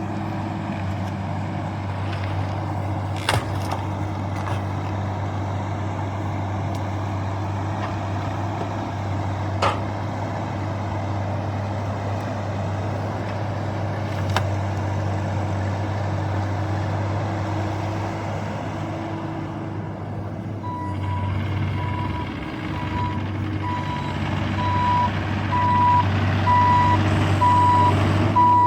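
Mini excavator's diesel engine running steadily, with a few sharp knocks. About two-thirds of the way in, its travel alarm starts a steady, repeating single-pitched beep as the machine begins to travel, and the beeping is the loudest sound toward the end.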